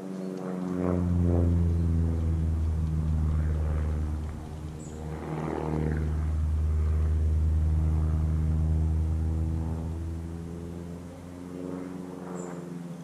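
An engine running steadily with a low-pitched note, swelling about a second in, dipping briefly around four seconds, then fading near the end.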